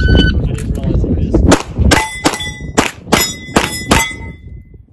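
A shot timer's start beep, then about a second and a half later a rapid string of about seven pistol shots at steel targets, with the plates ringing with a metallic clang after hits. The ringing dies away shortly after the last shot.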